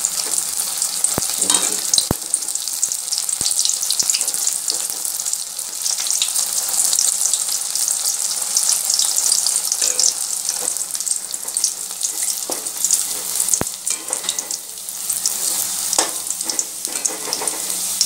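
Stuffed kakrol (spiny gourd) sizzling steadily as it shallow-fries in oil in a steel pan. A few sharp clicks come from the spatula against the pan as the pieces are turned.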